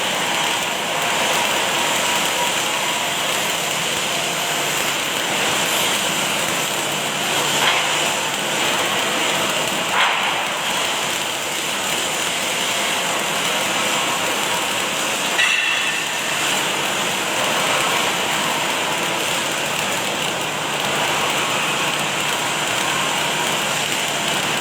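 Automatic arc welding machine running, its arc hissing and crackling steadily, with a few sharp clicks along the way.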